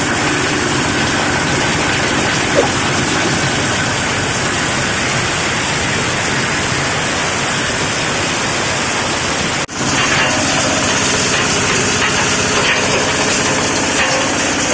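An 8 hp diesel engine driving a livestock manure grinder, running steadily with a dense, loud mechanical noise. The sound drops out for an instant about ten seconds in, then carries on unchanged.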